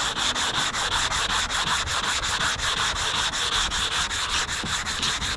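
180-grit sandpaper on a hand sanding block rubbing back and forth over a primed fiberglass spoiler in quick, even strokes, several a second. This is block sanding in an X pattern to cut back the guide coat and show up low spots.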